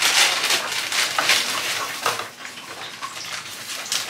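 Dry bihon rice-noodle blocks crackling and snapping as they are broken up by hand, mixed with the crinkle of plastic noodle packets being emptied. Denser and louder in the first two seconds, then lighter.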